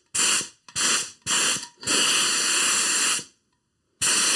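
Spray gun spraying contact adhesive in hissing bursts: three short trigger pulls, then a longer pass of over a second, and another long pass starting near the end. It is a first spray to check the gun's spray pattern.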